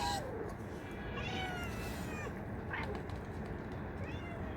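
Street cats meowing: four meows in a row, the second one long and falling in pitch, the others short.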